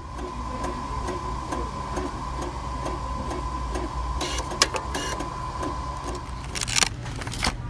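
A small machine running with a steady whine and regular clicking, a little over two clicks a second. The whine cuts out about a second before the end. A few short, sharp crinkling or clattering noises come in the second half.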